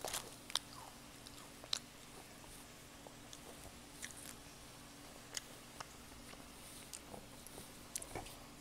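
A child chewing bites of a crunchy Rice Krispie treat: scattered small crunches and clicks at irregular moments, several close together in the first two seconds and a few more later.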